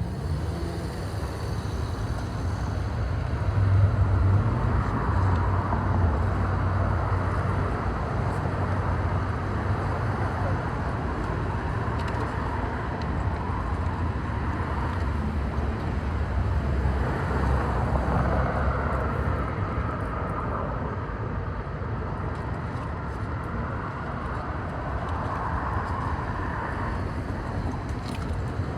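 Steady low rumble of road-vehicle noise, a little louder about four seconds in.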